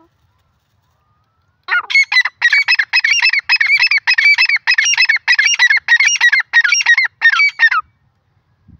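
Grey francolin calling: a loud run of harsh, rapidly repeated notes, about two a second, starting about two seconds in and stopping about six seconds later.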